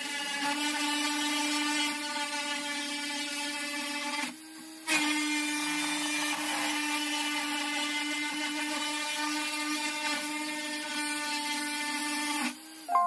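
Comgrow ROBO 3018 CNC router's spindle motor whining steadily as its engraving bit mills a pattern into a copper-clad circuit board. The whine dips out briefly about four seconds in and again just before the end.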